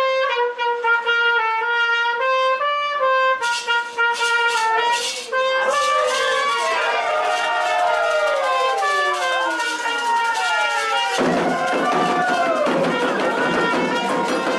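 A bugle (clarim) plays a call of held, stepped notes. A few sharp strikes follow, then several overlapping sounds sliding down in pitch, and about eleven seconds in a fuller, denser sound cuts in suddenly.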